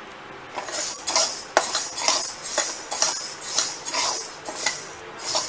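A steel spatula scraping and stirring jowar (sorghum) grains in a dry metal kadhai, a rhythmic scrape-and-rattle of about two strokes a second that starts about half a second in. The grains are being dry-roasted.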